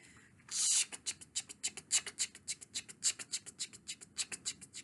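A voice making a fast rhythmic 'ch-ch-ch' chugging sound, imitating a moving freight train, about eight hissy strokes a second, starting about half a second in with a stronger first stroke.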